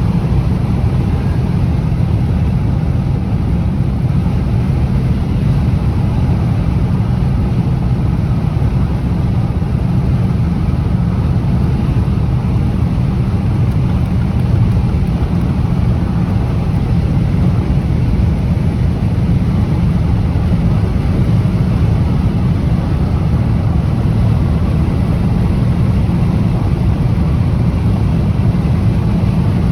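Strong wind blowing across the microphone, a loud steady low rumble with a fainter rushing hiss above it.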